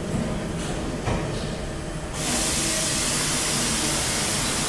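Okuma Multus U3000 mill-turn CNC machine running with a low steady hum. About two seconds in, a steady spray hiss starts inside the machine as the program moves back into cutting.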